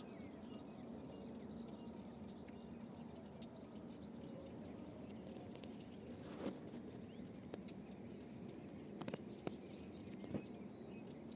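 Many small birds chirping and twittering in quick overlapping calls over a steady low background noise, with a few brief sharp clicks in the second half.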